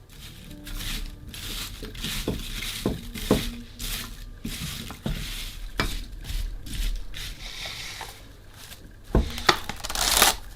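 Kitchen food preparation: irregular scraping, stirring and squishing noises with sharp clicks of a utensil against a bowl, a cluster of louder knocks about nine seconds in.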